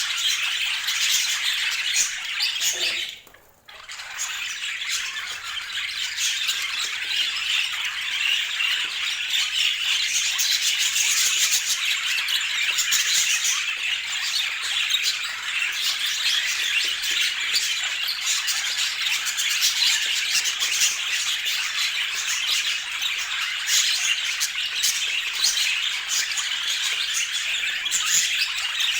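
Budgerigars chattering and squawking without a break, with a short dip about three seconds in.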